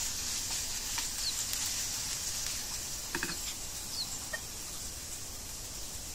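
Peas and diced carrots sizzling in olive oil in a frying pan: a steady hiss with scattered small pops and crackles.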